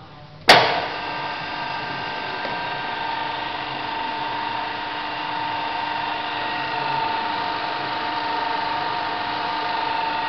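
MAS radial drilling machine: a loud clack about half a second in, then the spindle drive runs steadily with a high, even whine.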